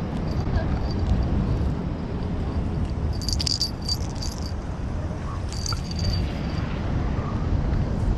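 Light metallic jingling in two short spells, one about three seconds in and one about five and a half seconds in, over a steady low rumble.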